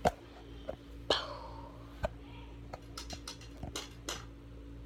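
Handling noise from a phone held at arm's length: scattered sharp taps and rubs, with a brief swish about a second in, over a faint steady hum.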